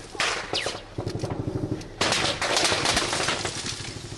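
Bursts of automatic gunfire, heard from inside a car, in rapid near-continuous strings of shots.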